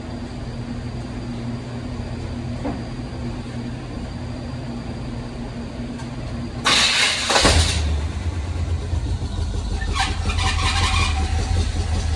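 Truck engine idling with a steady low hum. About seven seconds in comes a short loud hiss, after which the engine note is deeper and louder.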